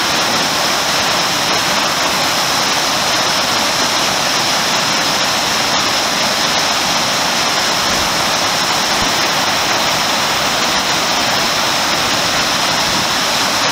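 Whitewater rapid rushing steadily as the river pours over a bedrock slide and ledges; an even, unbroken rush of water.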